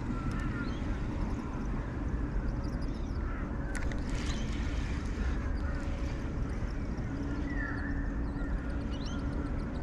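Steady low rumble of wind and water, with birds calling now and then from the mangroves. A few short clicks from the fishing reel come about four seconds in.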